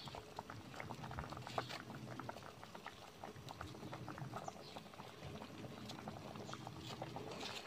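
Salmon-head tom yum broth boiling in a stainless steel pot: a steady bubbling made of many small, quick pops.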